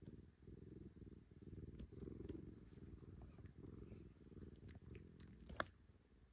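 Domestic cat purring softly and steadily, in a pulsing rhythm, while its chin is scratched; the purring fades out near the end. A single sharp click about five and a half seconds in.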